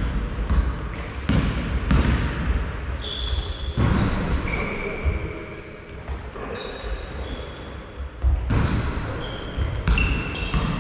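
Basketball dribbled on a sports-hall floor, bouncing at irregular intervals, with short high squeaks from players' sneakers on the court.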